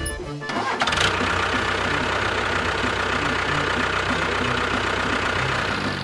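A motor starts about a second in and then runs steadily with a dense buzzing noise.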